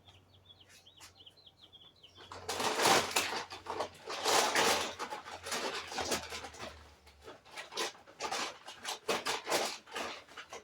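A bird chirping faintly in quick wavering notes, then a longer stretch of loud, irregular rustling and scraping noise from about two and a half seconds in.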